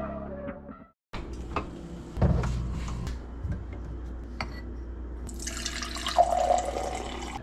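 Music fades out, then a kitchen cabinet is opened and glassware clunks with a few knocks. In the last two seconds, a stream of water runs into a pint glass, filling it.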